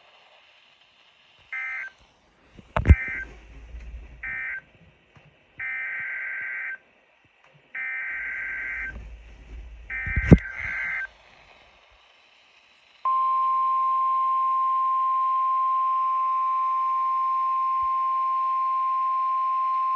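Emergency Alert System SAME data bursts, each a short buzzy electronic screech. Three short end-of-message bursts come first, then three longer header bursts that announce the next warning, with two sharp clicks among them. About two-thirds of the way in, a steady, loud 1050 Hz weather-radio warning alarm tone starts and holds.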